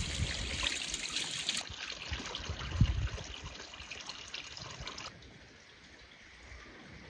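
Water trickling and splashing in a basin as a plucked chicken is rinsed by hand, with small drips and splashes throughout. About five seconds in it gives way to a faint background.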